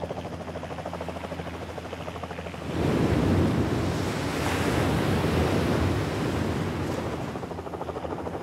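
A sinking ship's hull going under: seawater churning and rushing, with spray blasting up. It swells in loud about three seconds in and eases off near the end. Before that, a steady fast-pulsing beat like a helicopter's rotor.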